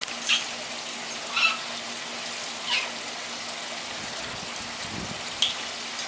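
Pet parrots giving short squawks, four in all, spaced a second or more apart, over a steady hiss and a faint low hum.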